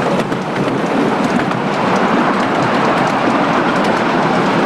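Passenger cars of a 7.25 inch gauge miniature railway rolling along the track: a steady rumble of wheels on rail, with a few faint clicks.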